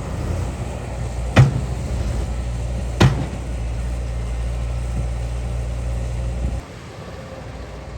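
Excavator's diesel engine running steadily, with two sharp knocks about a second and a half apart; the engine sound drops away suddenly near the end.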